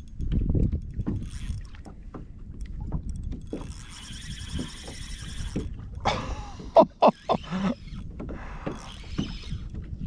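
A fishing reel being wound in, with a regular whirring about four seconds in. Short squeaks and knocks of handling against the kayak follow about six to eight seconds in.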